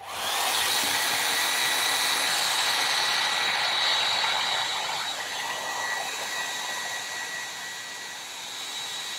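Handheld Revlon hair dryer switched on and blowing steadily: a rush of air with a thin high motor whine on top. It gets somewhat quieter in the second half.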